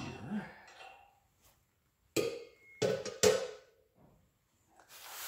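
Metal suspension parts clanking and knocking as they are handled and fitted, a few scattered clinks at first and then three sharp clanks close together about two to three seconds in.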